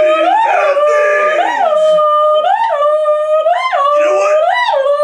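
A person's voice held in one long, loud howl into a microphone, at a steady pitch broken by a quick upward swoop and fall about once a second.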